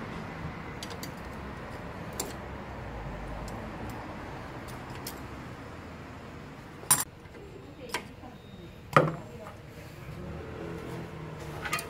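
Sharp metallic clinks and knocks of a wheel bearing and hub parts being handled and set into a truck's rear wheel hub, a few scattered strikes with the loudest two about seven and nine seconds in.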